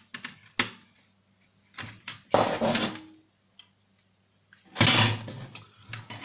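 Parts of a broken-open PlayStation 1 console being handled during disassembly: a few sharp plastic and metal clicks and knocks, and two longer scraping rustles.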